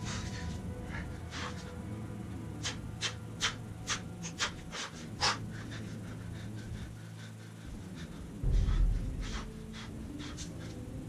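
A man panting hard, out of breath between sets of pull-ups and dips, with quick sharp breaths about two a second in the middle. A dull low thump comes about eight and a half seconds in.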